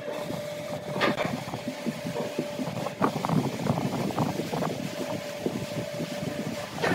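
Tapered wooden table leg being screwed down by hand onto a pine board: irregular wood-on-wood rubbing and grinding as it turns, with sharp knocks about one and three seconds in.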